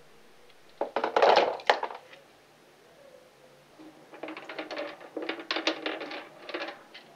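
Aquarium gravel being worked by hand under the water to loosen dirt, the small stones clicking and crunching against each other in quick runs. There is a louder rough rush of noise about a second in.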